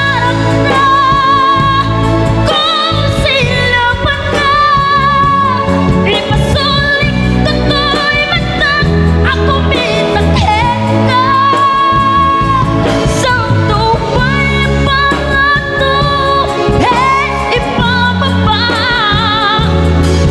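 Live band performing an Ilocano-language pop song: a woman singing lead, holding notes with vibrato, over drums, electric guitars and bass.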